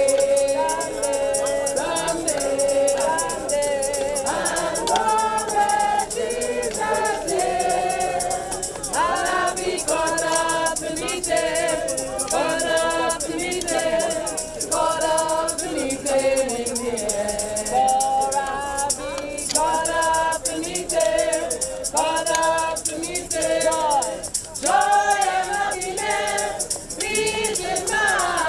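A group of voices singing a gospel hymn together, with a shaker rattling along in the treble.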